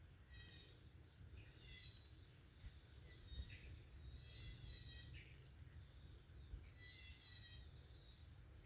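Near silence with faint, short high chirps repeating in little series about once a second, over a low background rumble.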